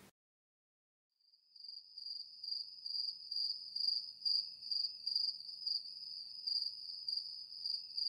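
A high, thin insect trill, cricket-like, starting about a second and a half in and pulsing evenly about twice a second.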